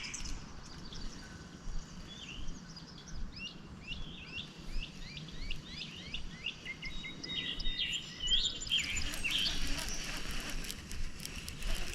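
Birds chirping and singing: many quick short chirps in rapid series over a faint, steady outdoor background.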